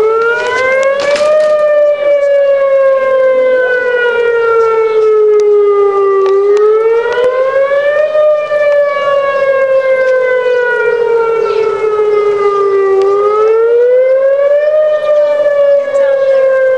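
Outdoor tornado warning siren wailing loudly. Its pitch rises quickly over about a second and a half, then falls slowly over about five seconds, repeating roughly every seven seconds.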